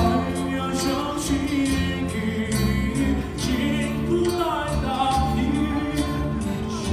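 Music with a singing voice over held chords and a steady percussive beat.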